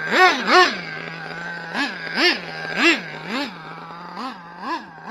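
Nitro RC truck's small two-stroke glow engine, a Dynamite .26 with a tuned pipe, idling and revved in about eight short throttle blips, the pitch jumping up and dropping straight back to idle each time.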